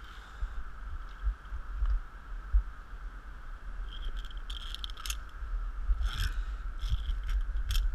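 Metal safety carabiners clinking and scraping along a steel cable in short irregular bursts, busier in the second half.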